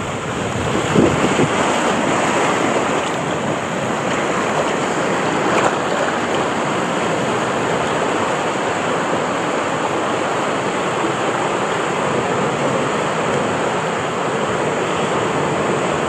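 Steady rush of water as an inner tube rides down an open water slide, with water splashing around the tube and wind buffeting the microphone. There are a couple of louder splashes, about a second in and again around five seconds in.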